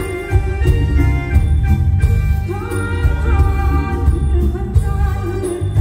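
Live band music amplified through a PA, with a woman singing into a microphone over a heavy bass and drum beat.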